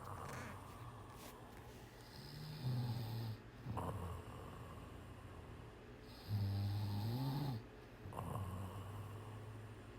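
Cat snoring in slow, regular breaths: a low snore about every four seconds, with a breathy exhale between.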